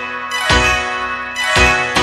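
Bollywood film song in an instrumental passage between sung lines, with bell-like chimes and two strong struck beats ringing out.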